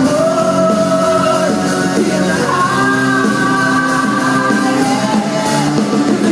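Live rock band playing, a melodic lead line holding long notes over the backing.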